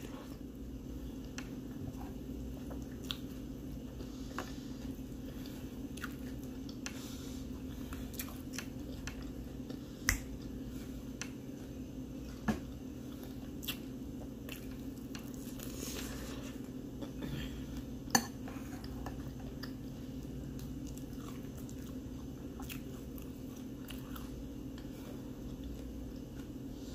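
A person chewing spoonfuls of cereal in milk close to the microphone, with a spoon clicking sharply against the bowl now and then, over a steady low hum.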